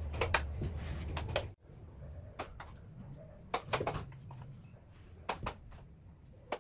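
Metal drywall knife scraping and clicking against a tray of joint compound and spreading it on drywall, in short separate strokes. A low hum cuts off abruptly about a second and a half in.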